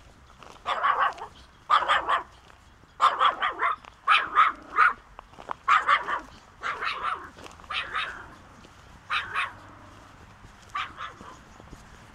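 A dog barking repeatedly in short volleys of a few barks each, loudest about three to five seconds in and fainter toward the end.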